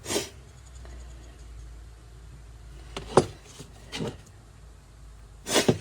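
A few scattered clicks and knocks, the sharpest about three seconds in, from parts and tools being handled as the motor mount is fitted, over a faint low hum.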